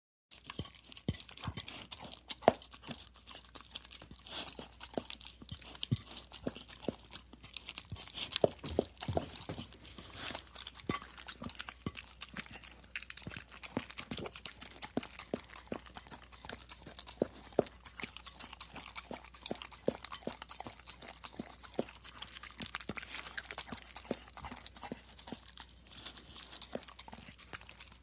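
A dog licking a plate: a fast, irregular run of short tongue laps and smacks.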